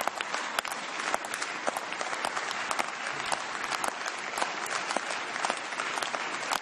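Members of the Scottish Parliament applauding: a dense, steady clatter of many hands clapping.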